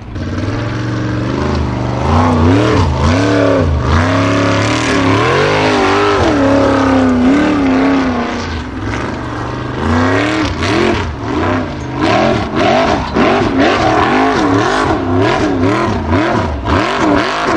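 Formula offroad buggy's engine revving hard under load as it climbs a steep loose slope with its wheels spinning. The revs rise and fall over and over, more quickly in the second half.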